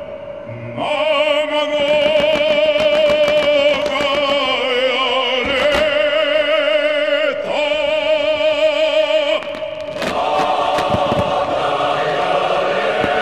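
Operatic solo singing with a wide vibrato on long held notes over music, with frequent sharp cracks. About ten seconds in it gives way to a choir.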